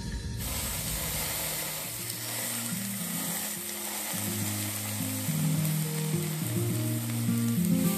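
Raw chicken breast frying in a hot pan: a steady sizzle that starts about half a second in. Background music with low notes plays under it.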